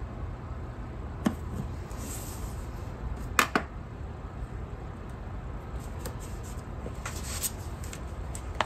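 Craft knife and stickers handled on a wooden desk: a sharp tap about a second in and a louder one about three and a half seconds in, then faint light rustling, over a steady low hum.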